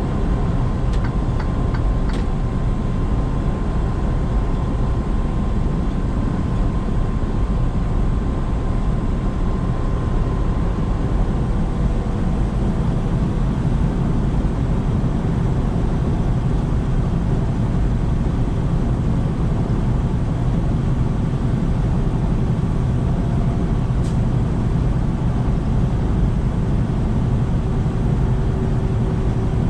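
Semi-truck driving along at a steady pace: a constant low engine drone and road noise with no change in pitch, and a few faint clicks near the start and about two-thirds of the way through.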